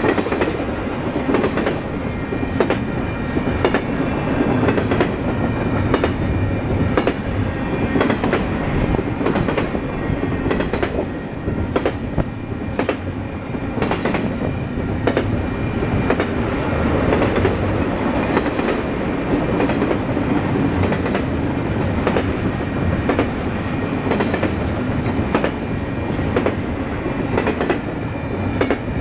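Double-stack intermodal train's well cars rolling past: a steady rumble of steel wheels on rail, broken by frequent sharp clicks and knocks from the wheels and cars.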